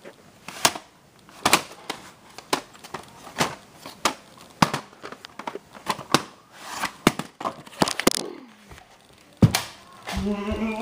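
Irregular sharp clicks and knocks from handling, about two a second, some louder than others. Music starts near the end.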